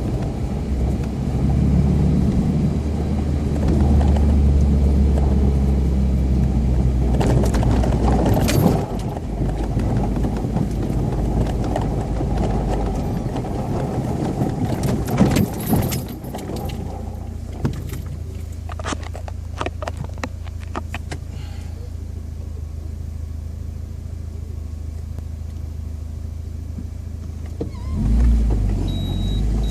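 UAZ Patriot 4x4 engine running hard while driving on a rough track, with clattering knocks and rattles. The engine eases off a little after about 13 seconds and surges again near the end.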